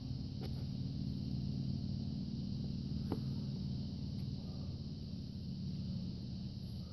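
Steady low outdoor rumble, with two faint knocks, about half a second and about three seconds in.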